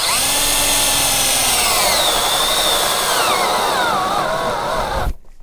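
Cordless drill boring a 35 mm hole through a wooden board. The motor runs steadily, then sinks in pitch from about two seconds in and stops near the end: its battery is going dead.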